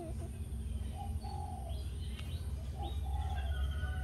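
Birds chirping in the background, with short soft cooing calls about every two seconds over a steady low hum.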